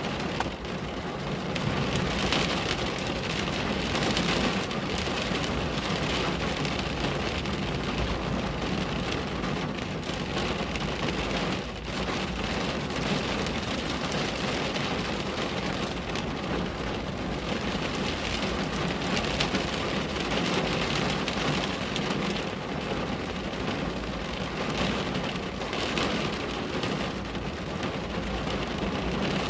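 Steady rain falling on a window, a dense, even patter that swells and eases slightly.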